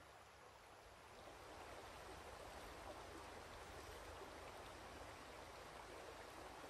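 Shallow creek running over rocks, a faint, steady rush of water that swells slightly over the first second.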